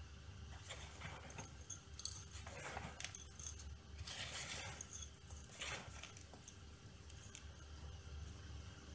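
Hands firming gritty potting soil around a succulent cutting in a small terracotta pot: soft scraping rustles and a few light clicks, mostly between about two and six seconds in, over a faint steady low hum.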